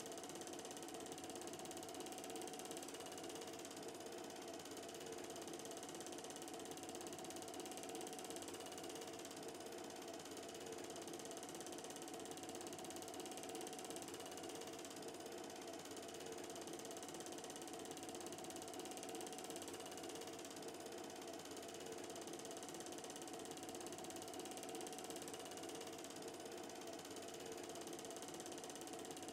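Film projector running a reel, giving an even mechanical clatter over a steady whir that does not change, with no soundtrack from the film.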